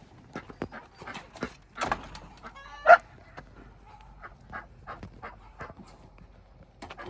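Short animal calls, with one loud pitched call about three seconds in.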